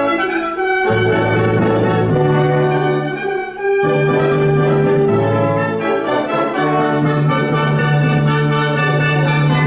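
Wind band playing a passage in rehearsal, with brass to the fore and sustained low notes. The sound thins briefly a little after three seconds in, then comes back at full strength.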